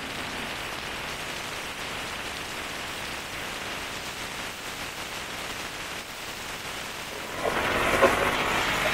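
Steady rush of wind and road noise from a moving motorcycle. About seven seconds in it grows louder, with engine noise rising, and there are two sharp knocks near the end.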